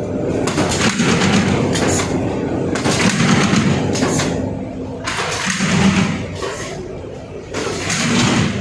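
Automatic carton folder-gluer machine running: a steady mechanical hum with repeated clattering as corrugated board sheets feed through its belts.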